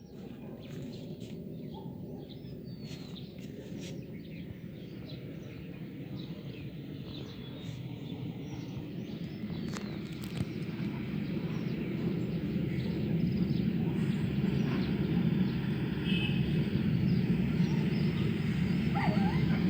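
A low rumble heard from the sky, building slowly in loudness, with birds chirping over it.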